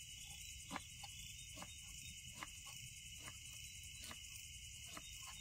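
Steady chorus of crickets and other night insects, with a knife knocking on a chopping board roughly once a second as onions are chopped.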